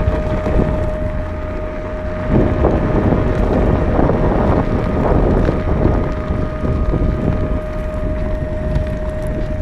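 Wind buffeting the microphone of a camera riding along on a moving electric off-road skateboard. The rumble thickens from about two seconds in. A steady high whine that never changes pitch sits underneath.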